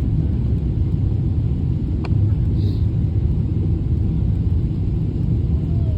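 Steady low rumble of a vehicle in motion, heard from inside, with a single faint click about two seconds in.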